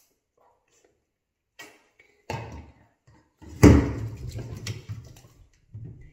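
A few handling knocks: a click, a knock about two seconds in, then a loud sudden thump about three and a half seconds in that dies away over a second or so.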